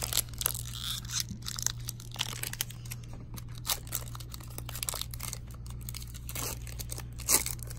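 Foil wrapper of a trading-card pack being torn open and crinkled by hand, with irregular crackling rips and a louder rip near the end. A steady low hum runs underneath.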